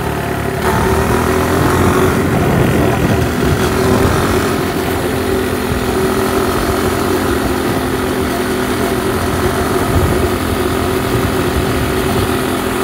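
A vehicle's motor running steadily at an even pitch while travelling over an asphalt road, with a constant rushing noise from the ride.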